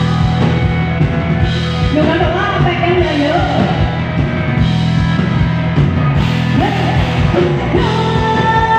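Live rock band playing loudly through a PA system: a singer's voice over bass guitar and drums.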